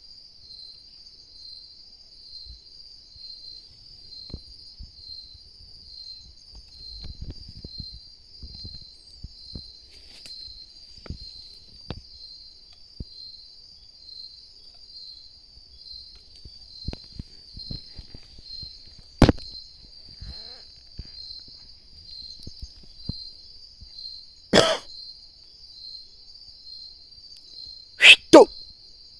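Night insects trilling in a steady, high, pulsing chorus, with scattered faint ticks and rustles. Several sudden loud sharp sounds cut in during the second half, ending with a quick double near the end.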